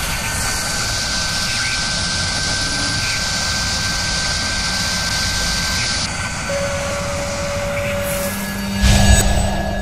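Sound-effect track for an animated drilling sequence: a steady whirring drone with a high whine like a spinning drill spindle, then a loud low hit about nine seconds in.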